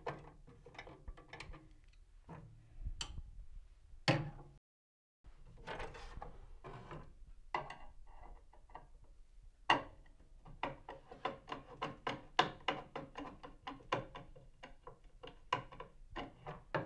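Screwdriver backing out the small screw that holds a miter saw's blade guard slide bushing: small metal clicks and scrapes of the tip on the screw. The clicks come quicker and more regularly, about three a second, in the second half.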